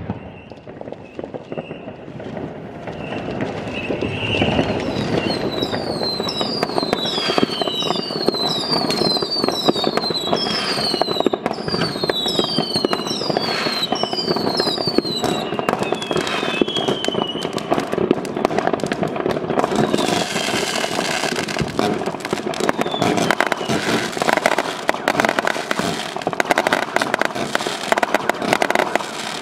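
Many fireworks going off across a neighbourhood at once: a steady din of crackling and pops. From about four seconds in, a run of short whistles, each falling in pitch, repeats for some twelve seconds.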